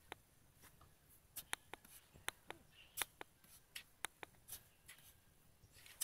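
A hand digging in loose sand, scraping and scooping grains: faint, irregular scratchy clicks.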